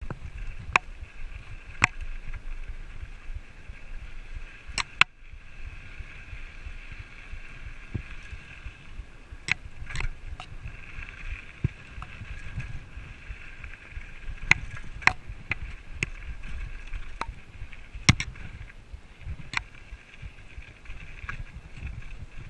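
Whyte 801 hardtail mountain bike riding over a rough dirt and rock path. Low wind rumble and tyre noise, with a high steady buzz that drops out now and then, and sharp irregular clicks and knocks as the unsuspended frame and drivetrain rattle over stones.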